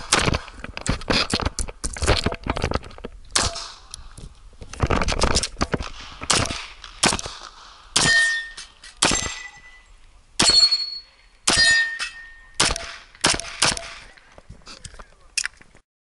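STI 2011 Edge .40 pistol firing rapid strings of shots in pairs and singles, with a ringing metallic ping after several shots as steel targets are hit. It stops abruptly just before the end.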